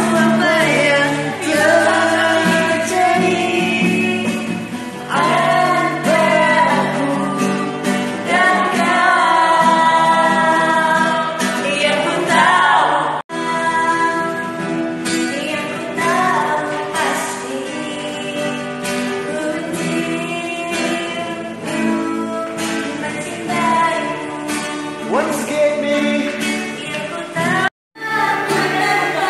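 A woman singing an Indonesian pop love song while strumming an acoustic guitar. The sound cuts out suddenly for a moment about halfway through and again near the end.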